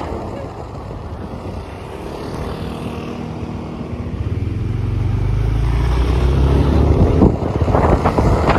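Motor scooter engine heard from on the bike, speeding up: its hum rises in pitch and grows louder over a few seconds. Wind buffets the microphone near the end.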